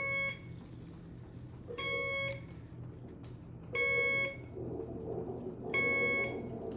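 Hospital bedside equipment alarm beeping: a pitched electronic tone about half a second long, repeating about every two seconds, four times.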